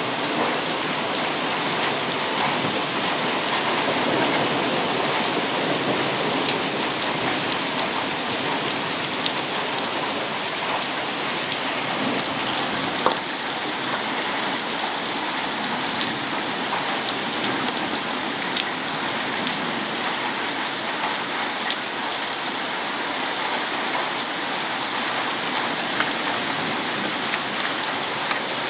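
Heavy rain pouring steadily in a thunderstorm, with a few sharp ticks of drops or hailstones striking a hard surface scattered through it.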